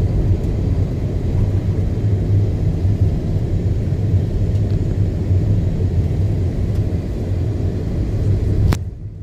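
Steady low rumble of a car's engine and tyres heard from inside the cabin while driving slowly on a rough, narrow road. Near the end a sharp click, and the sound drops away suddenly.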